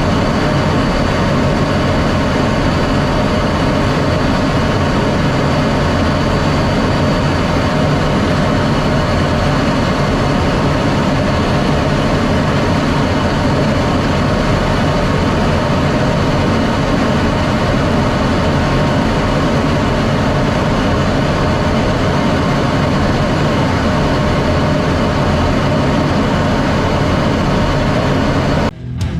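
F-16D Fighting Falcon's jet engine and airflow making a loud, steady drone with constant high whine tones, cutting off suddenly near the end.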